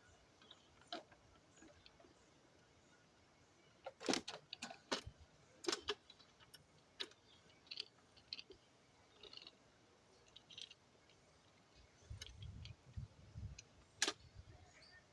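Scattered clicks and light knocks of mower parts and packaging being handled during unpacking, with a short low rumble near the end.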